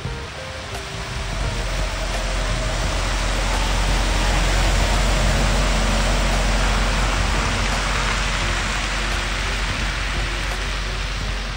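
MAN TGX 18.520 articulated truck with its D26 diesel driving by: a low engine rumble and hissing tyre noise build up to a peak about halfway through and ease off as it pulls away.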